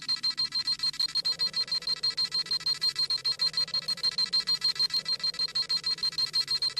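Dragon Ball Z scouter sound effect: a rapid electronic beeping, a high tone pulsing about seven times a second, over a faint low hum.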